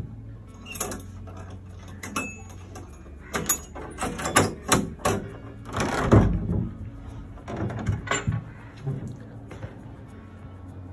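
A key turned in a large old brass door lock and the bolt worked: a run of metal clicks and clunks, thickest about four to six seconds in. Then the heavy wooden door is pushed open.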